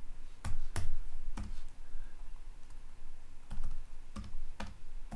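Computer keyboard keystrokes typing out a short command: about eight separate, unevenly spaced key clicks with pauses between them.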